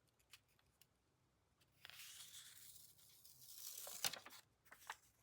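Faint rustle of paper and card stock being handled, starting about two seconds in, followed by a few light clicks and taps.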